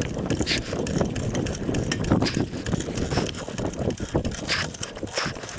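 Rapid, irregular clicking of a ratchet mechanism from hand tools being worked on a car's wheel and jack.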